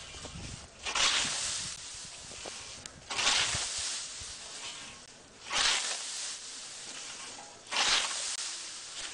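Scythe blade swishing through tall dry grass in four strokes, a little over two seconds apart, each a short swish of cut stalks, with light rustling between strokes.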